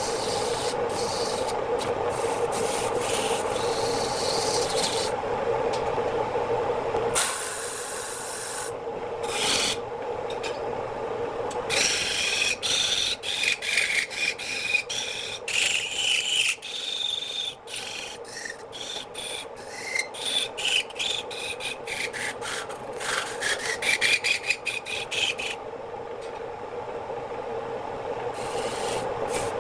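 Wood lathe running while a turning tool cuts and scrapes the spinning wood. A steady hum fills the first several seconds. Uneven scraping strokes follow, with a high note that glides up and down as the tool works.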